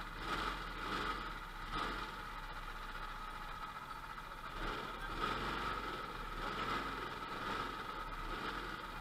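Rental go-kart engine idling steadily.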